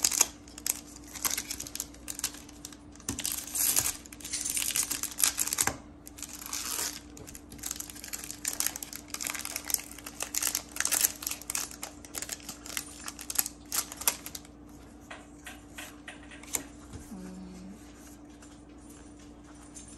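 Foil Pokémon booster pack wrapper crinkling and tearing as it is opened by hand, in irregular bursts for about fourteen seconds. After that, softer ticks of trading cards being handled and sorted.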